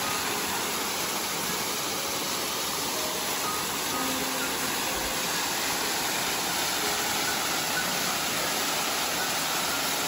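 Small waterfall pouring down a rock face into a shallow pool: a steady, even rush of falling water.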